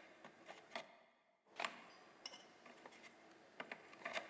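Faint, scattered light clicks and taps of a chainsaw's chain and bar being handled while the chain is fitted and tensioned, with a moment of dead silence a little after a second in.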